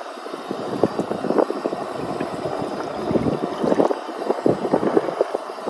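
Wind buffeting the microphone in irregular gusts, with rough rumble and crackle.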